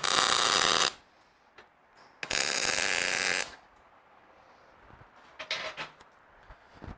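Welder laying two tack welds on steel bumper plate, each a steady crackling burst of about a second, the second starting a little over two seconds in. A few light clicks follow near the end.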